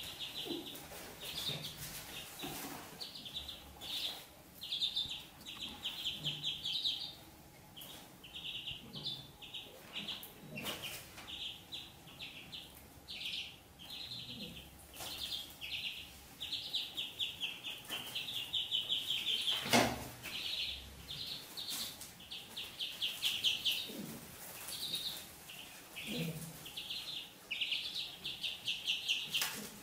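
Ducklings peeping almost without pause, in quick high runs of peeps, with one sharp knock about two-thirds of the way through.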